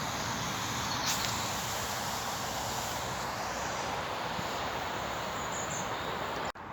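Steady rushing hiss of outdoor background noise with no distinct events, cutting off abruptly near the end.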